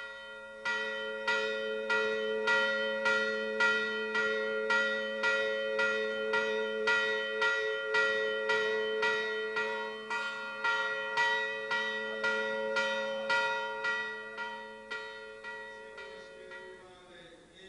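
Church bell ringing in quick, even strokes, about two a second, each stroke ringing on over the next. The ringing fades out near the end.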